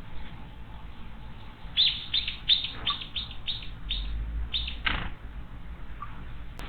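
A small wild bird calling: a quick run of about nine short, sharp chirps, about three a second, starting about two seconds in.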